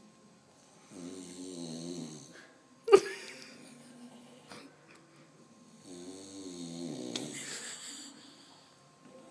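A sleeper snoring: two long, rasping snores about five seconds apart, with a short, sharp sound about three seconds in that is the loudest thing heard.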